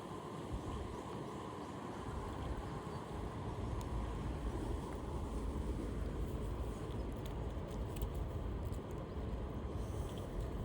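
Steady rushing of a shallow river, with a low wind rumble on the microphone that grows about two seconds in.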